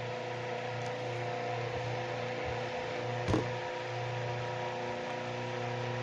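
Vintage 8-inch Super Electric desk fan running steadily: a constant electric motor hum with several steady tones, the fan working properly on its newly wired toggle switch. A single short knock about three seconds in.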